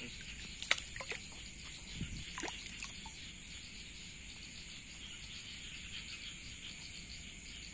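Steady chorus of night insects chirring, with a few sharp handling clicks and knocks in the first three seconds.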